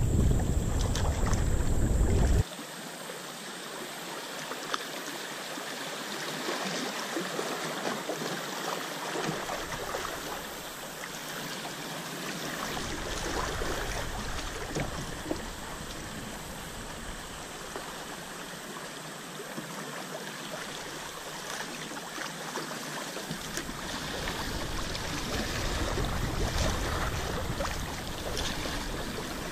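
Shallow river water running and rippling over gravel riffles around the bow of a small paddled boat, a steady hiss of moving water. For the first two seconds or so, wind rumbles on the microphone, then stops abruptly.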